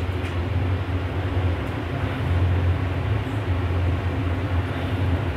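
Otis hydraulic elevator car travelling up, heard from inside the cab: a steady low hum with an even rushing noise over it.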